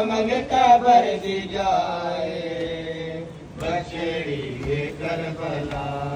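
A man's voice chanting a noha, a Shia Muharram mourning lament, in long held notes that waver up and down over a low steady hum.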